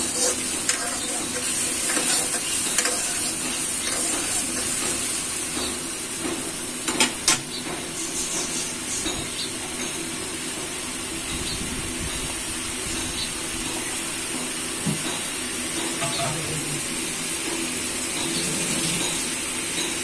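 Onion and spice masala sizzling in oil in a metal karahi while a spatula stirs it, scraping and clicking against the pan, with a couple of sharper clacks about seven seconds in.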